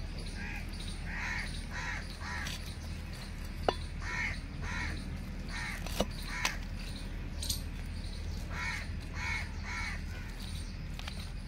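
A crow cawing in three short runs of three or four caws. A few sharp knocks of a steel cleaver striking a goat trotter on a wooden stump come between them, the loudest about a third and halfway through.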